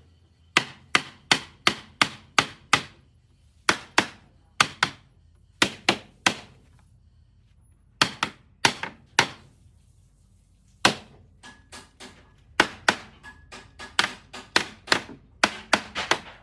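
Hammer striking wood in quick runs of three to seven blows, about three a second, with short pauses between the runs.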